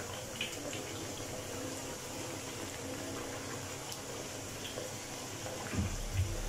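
Katlama dough frying in hot oil in a karahi, the oil sizzling and bubbling steadily. Two short low thumps near the end.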